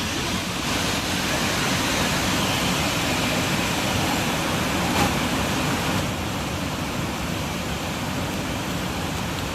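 Tirathgarh waterfall, water falling with a steady, even rush; a brief click about five seconds in.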